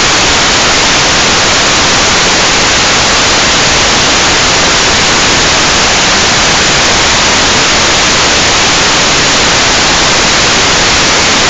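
Loud, steady static hiss from an analog FPV video receiver that has lost the drone's video signal.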